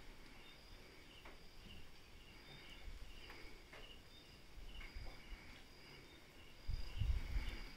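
Crickets chirping steadily in a quick repeating pattern, with a brief low rumble near the end.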